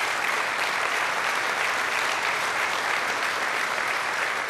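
Audience applauding steadily: dense, even clapping from a crowd.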